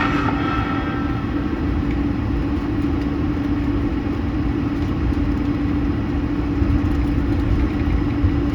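Airliner cabin noise inside an Airbus A220: the Pratt & Whitney PW1500G geared turbofans run in a steady drone, with a constant hum over an even rumble.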